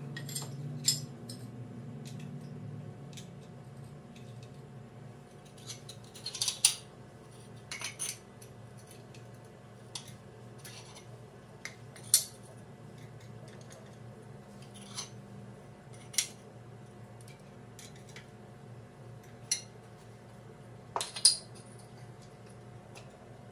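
Loose floor tiles being set down on a bare subfloor and against each other during a dry layout, giving sharp clinks and clacks every second or two, a few of them much louder. A steady low hum runs underneath.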